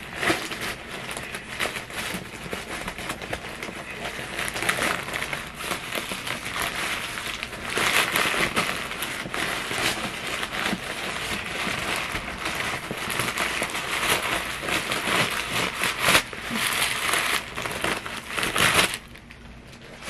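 Crumpled packing paper crinkling and rustling as it is pulled out of a new backpack's main compartment. The crinkling stops about a second before the end.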